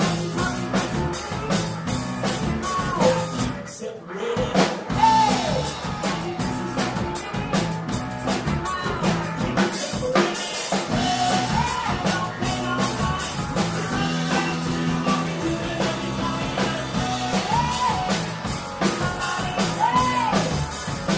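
A live rock band playing: a singer over a drum kit and electric guitar.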